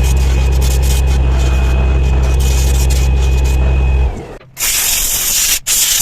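An electric motor runs steadily with a low hum and a thin high whine, then switches off about four seconds in, the whine dropping as it spins down. Compressed air follows in a loud hiss: one blast of about a second, then a short one near the end.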